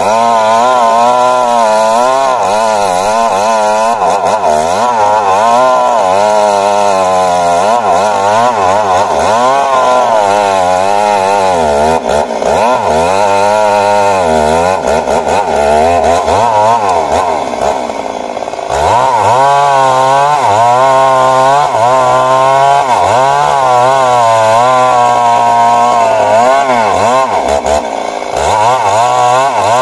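Stihl MS 382 two-stroke chainsaw running at high revs while cutting into a big tree trunk. Its pitch wavers up and down as the chain loads and frees in the wood, and it eases off briefly twice, about two-thirds through and near the end.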